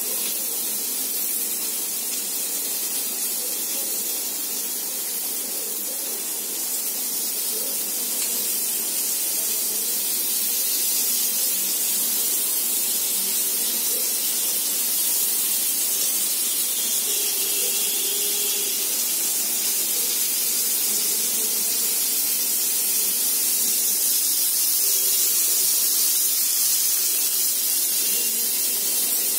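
Steady sizzling hiss of paneer tikka skewers cooking on a hot tawa, basted with oil.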